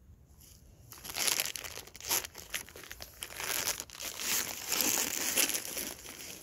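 Plastic wrapper crinkling as it is handled, a dense crackle that starts about a second in and goes on to the end.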